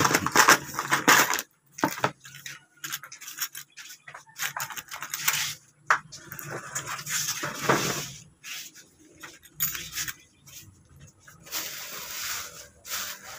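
Plastic packaging crinkling and rustling, with light clicks and clinks of small parts as an air rifle's action is handled. Loudest in the first second and a half, then in irregular bursts.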